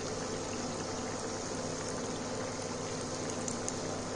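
Hot oil sizzling and bubbling steadily around three layered samosas deep-frying in a kadai.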